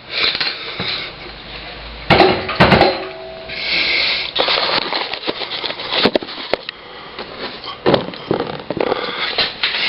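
Knocks, clunks and scraping of metal parts as a motorcycle front wheel is worked into a tight fit between the forks, with a cluster of sharp knocks about two seconds in.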